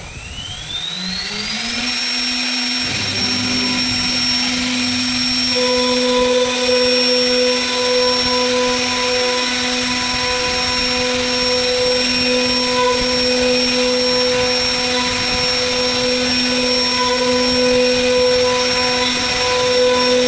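CNC router spindle spinning up with a rising whine over the first two seconds, then running at a steady high whine as its bit carves a wooden door panel.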